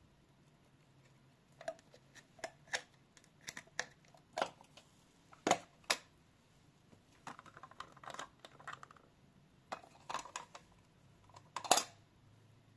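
A series of irregular light clicks and knocks, about a dozen spread unevenly, with a short rustle in the middle and the loudest knock near the end.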